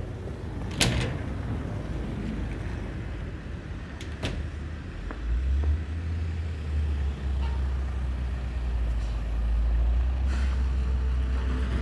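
Street ambience with a large road vehicle's engine rumbling low: it comes in about five seconds in and holds, after a few sharp clicks near the start and about four seconds in.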